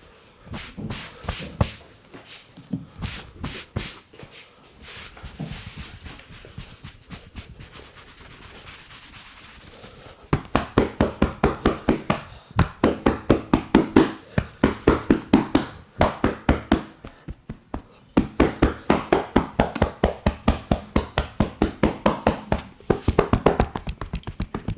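Hands working a person's back in a massage: scattered rubbing and light pats, then about halfway through a fast, even run of percussive hand strikes, about four a second, with a short break before they resume.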